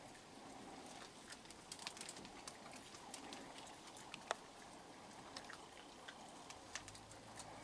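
Raccoons feeding on dry kibble scattered on a wooden deck: faint, irregular small clicks and crunches, with one sharper click about four seconds in.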